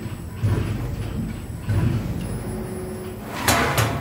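RONGWIN RWA05-1400PC1 full-servo CNC panel bender working a sheet-metal panel: three low mechanical thuds over a steady machine rumble as the bending blade strokes, with a sharper, brighter clatter near the end.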